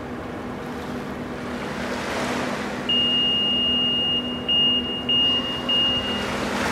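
The MV Salish Orca's engines hum steadily at berth over water washing in the background. About three seconds in, a high-pitched electronic warning beeper sounds one long tone, then three short beeps.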